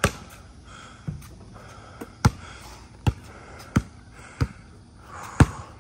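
Basketball being dribbled on a concrete driveway: about seven bounces, roughly one a second, at an uneven pace.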